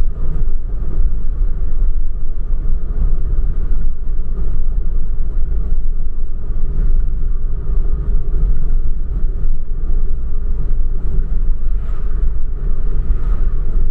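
Steady low rumble of road and tyre noise heard inside the cabin of a moving car.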